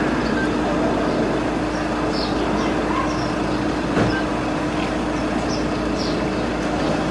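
Steady background noise with a constant hum and a single click about four seconds in.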